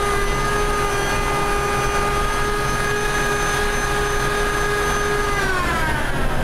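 Power drill spinning a sanding disc against the blade of a wooden spatula, a steady whine that winds down in pitch a little over five seconds in as the drill is let off. A steady rushing noise continues underneath.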